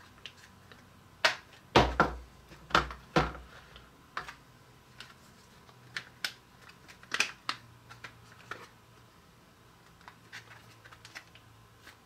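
Hard plastic parts of a Kellogg's Rice Krispies Treats Maker clicking and knocking together as the cutter and handle pieces are fitted into their slots. The sharp clicks are scattered and irregular, with a few heavier knocks about two to three seconds in.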